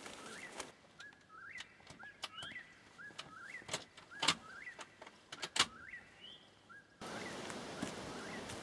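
A small bird calling, repeating a short rising chirp about every two-thirds of a second, with a few sharp clicks; the loudest click comes about halfway through.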